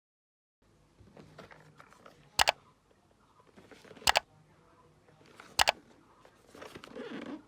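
Three sharp double clicks about a second and a half apart, over light handling noise, followed by rustling near the end, typical of hands handling hardware and packaging.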